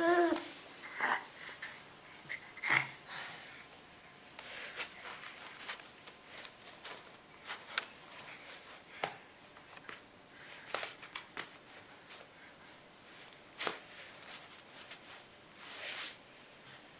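A baby's short vocal sound at the start, then scattered rustling and crackling as he crawls on the floor and grabs at the foam puzzle mat.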